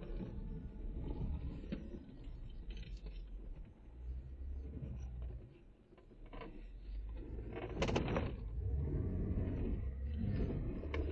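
Jeep Wrangler Unlimited Rubicon crawling at walking pace over a rutted snowy trail, heard from inside the cab: a low engine rumble with knocks and rattles as the suspension and body jolt over the ruts, the loudest knock about eight seconds in.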